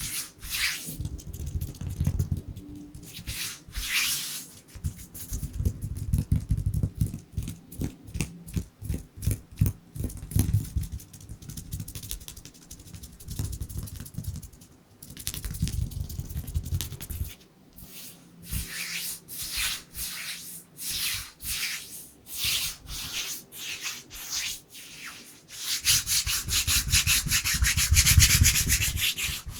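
Dry bare hands rubbing together close up, in quick irregular strokes, with a louder, faster stretch of continuous rubbing near the end.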